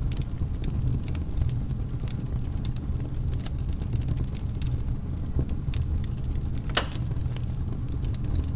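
Fire crackling: many short sharp crackles and pops, one louder crack near the end, over a steady low rumble.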